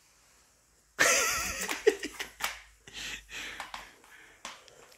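A short laugh or breathy burst of voice about a second in, followed by scattered light clicks and knocks of a Benelli M2 shotgun's metal parts being handled during reassembly.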